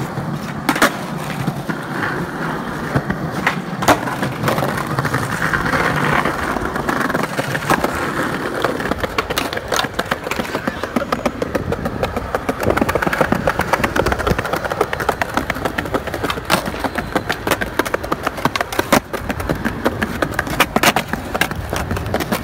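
Skateboard wheels rolling over rough pavement, a continuous rumble broken by many sharp clacks of the board snapping and landing tricks.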